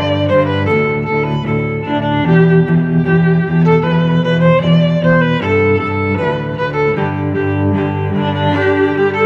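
Background instrumental music with held notes that change pitch every half second to a second.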